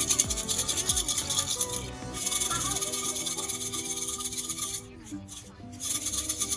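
Brisk scrubbing, a hissy rubbing with a fast back-and-forth rhythm, in three spells broken by a short pause about two seconds in and a longer one near five seconds, over background pop music.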